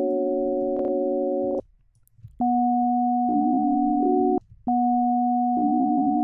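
Piano sample played back time-stretched in Ableton Live's Tones warp mode: a chord held as steady, buzzy, grainy tones rather than struck piano notes. The lower notes change a few times, and the sound cuts out for about a second near two seconds in and briefly twice more.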